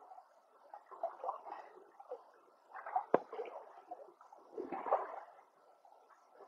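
Creek water splashing and sloshing in irregular bursts as wet gravel is worked by hand, with one sharp knock about three seconds in.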